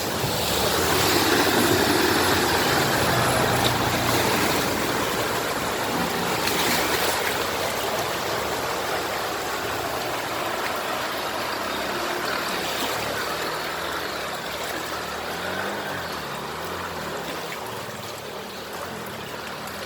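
A motor vehicle moving through floodwater, with a steady rush and splash of water that is loudest over the first few seconds and then slowly eases off.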